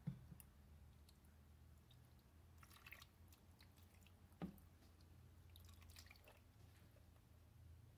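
Quiet, faint wet dripping and squishing of thick guajillo chile sauce poured and scraped from a plastic container onto pork ribs in a slow cooker, over a low steady hum. There are two brief knocks, one at the very start and one about four and a half seconds in.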